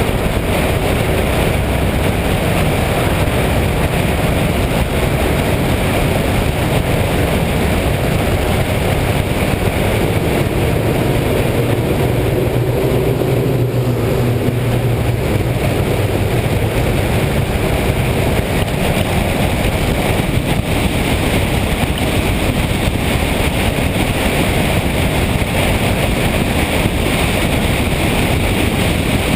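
Motorcycle riding at road speed: steady wind rush on the microphone over the engine, whose low note comes up more strongly for several seconds around the middle.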